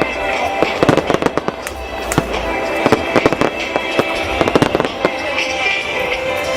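Fireworks going off in a dense barrage: many overlapping bangs and crackles in quick, irregular succession.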